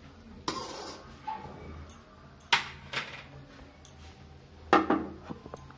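Metal spatula knocking and scraping against an aluminium wok as leafy greens are stirred. Near the end comes a louder clank as the wok's aluminium lid is put on, then a few light clicks.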